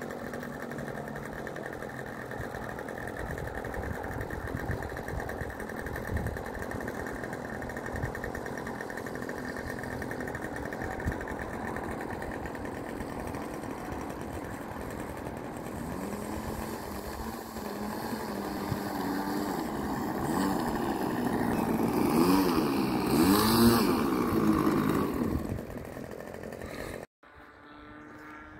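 Radio-controlled model airplane's engine running steadily, then climbing in pitch as the plane takes off. It is loudest, its pitch wavering up and down, about three-quarters of the way through, and drops away abruptly near the end.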